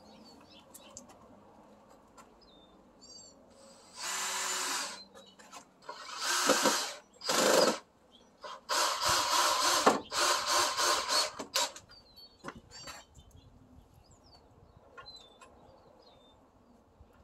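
Cordless drill driving wood screws into 4x4 lumber in several short bursts, each a second or so long.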